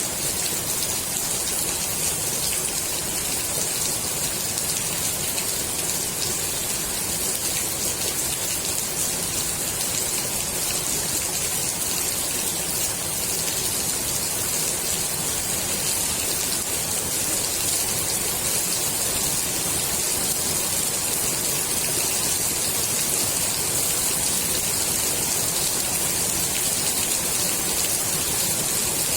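Steady rain falling on the water of a swimming pool, an even hiss of many drops.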